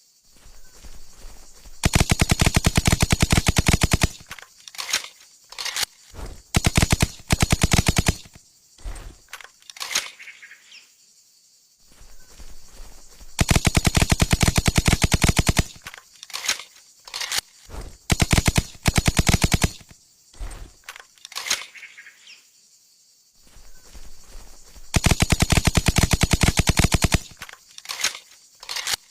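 Suppressed Steyr TMP 9 mm submachine gun firing full-auto: three long bursts of two to three seconds each, with many short bursts and single shots between them.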